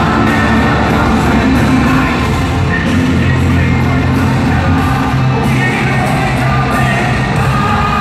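Hard rock band playing live and loud through an arena sound system, with singing over the band.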